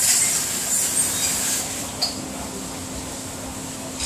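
Water hissing from a commercial pre-rinse spray arm at a dish-pit sink, cutting off about a second and a half in. A single clink about two seconds in, over a steady low hum.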